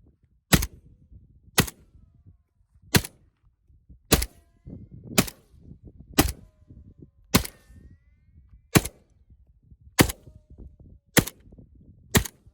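Semi-automatic AK-pattern rifle in 7.62x39 mm firing single shots at a steady pace, about one a second, eleven shots in all, each a sharp crack with a short echo after it.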